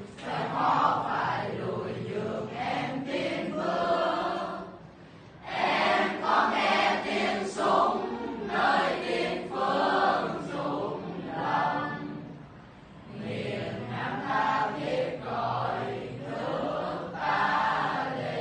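A mixed group of teenage students singing a revolutionary song together in chorus, with short breaks between phrases about five and thirteen seconds in.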